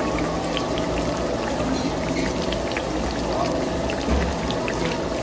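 Beef and shrimp sizzling on a Korean barbecue table grill: a steady hiss with scattered small pops and crackles, over a low steady hum from the overhead extractor hood.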